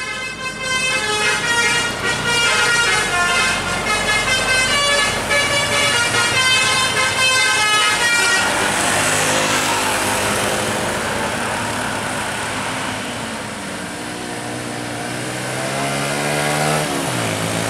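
Indonesian bus's multi-tone telolet horn playing a fast sequence of stepping notes for about eight seconds. It is followed by the rushing noise of the bus's engine and tyres going past, with an engine note rising slowly toward the end.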